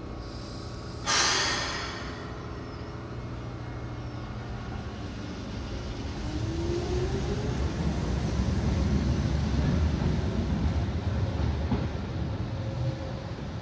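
Keihan commuter train pulling out of the station. A sharp hiss of released air comes about a second in, then a rising motor whine from about six seconds, and a low rumble of wheels on rail swells as the cars accelerate past and eases off near the end.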